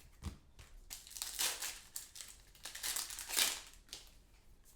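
A foil trading-card pack being torn open and crinkled, a few sharp rustling bursts, the loudest about a second and a half in and again near three and a half seconds.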